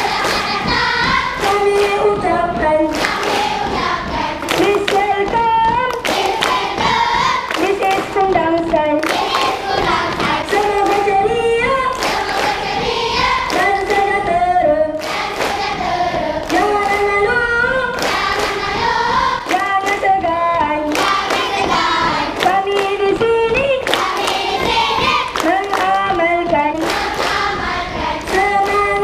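A large group of schoolchildren singing a chant in unison while clapping their hands in a set rhythmic pattern: a Malaysian school 'tepuk' clapping routine.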